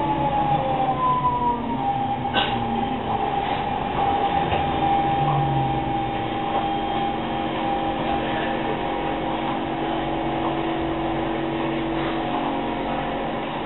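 SMRT C651 metro train's traction motor whine falling in pitch as the train brakes into the station, then holding a steady tone over the rumble of the carriage as it creeps to a stop. A single click about two seconds in.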